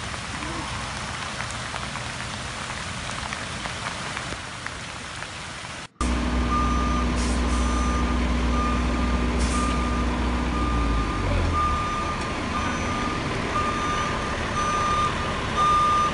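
A steady hiss for about six seconds. Then a truck's reversing alarm beeps about once a second over its running engine, whose low hum drops away about halfway through while the beeping goes on.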